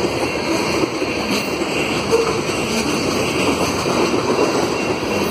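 Herzog ballast hopper cars of a freight train passing close by at speed: a steady, unbroken rush and rumble of steel wheels on the rails.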